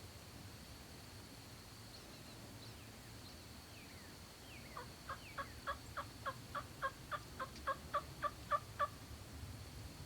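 A run of about fifteen turkey yelps, evenly spaced at a little under four a second, beginning about halfway in and growing louder toward the end.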